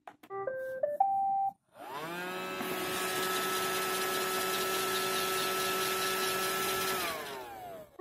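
A click of the Roomba 560's Clean button, then its short start-up tune of a few rising tones. The Roomba's vacuum and brush motors then spin up with a rising whine, run steadily, and wind down with a falling pitch about seven seconds in, as the robot halts on an error 1, the sign of a wheel dropped over a cliff edge.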